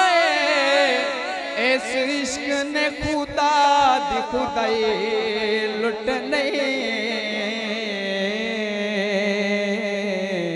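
Male voice singing a devotional Punjabi kalam unaccompanied into a microphone, drawing out long melismatic notes with a wavering vibrato, settling into a steadier held note about halfway through.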